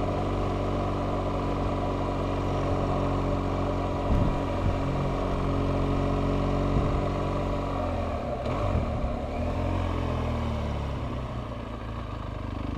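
BMW R1200GS boxer-twin motorcycle engine running at low road speed, steady at first, then dropping and picking up again a few times after about eight seconds.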